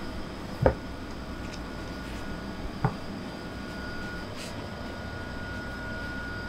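Steady mechanical hum of a bakery kitchen's machinery, with a faint high whine held in it. Two sharp knocks of a tool against the wooden pastry board come about a second in and again near three seconds.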